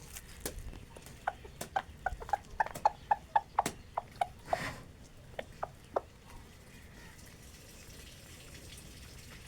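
Chickens pecking at grain, a quick run of sharp little taps several a second, which stops about six seconds in.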